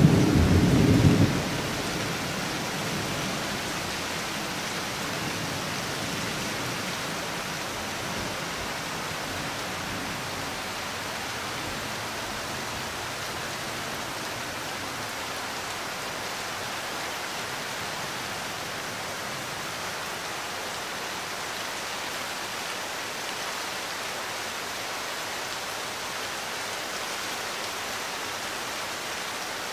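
Thunder rumbling, cut off suddenly about a second in, then steady rain falling.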